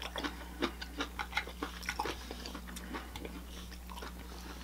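A person chewing a mouthful of air-fried chicken close to the microphone: many small mouth clicks and crackles, thinning out for the last second or so.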